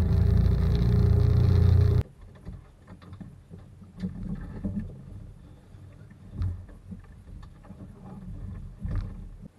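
A small boat's outboard motor running steadily, which cuts off abruptly about two seconds in. Then come faint knocks and bumps, with a few sharper clicks, as someone moves about on the sailing dinghy's deck and rigging.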